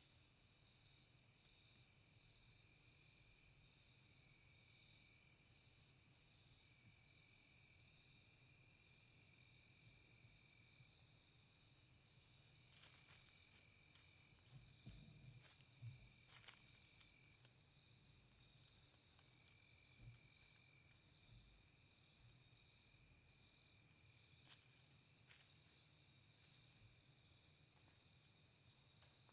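A steady, high-pitched chorus of insects trilling, with a few faint clicks near the middle.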